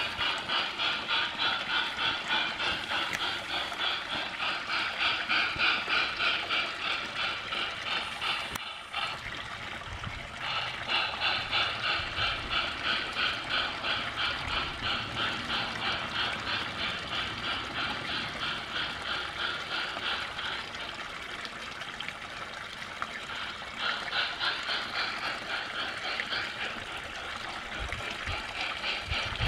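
Model steam locomotive's sound unit chuffing steadily, several hissy chuffs a second in an even rhythm, as the garden-scale train runs.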